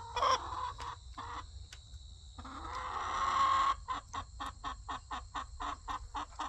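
Chickens, a rooster and his hens, clucking: a long rising call, then a quick run of short clucks about five a second.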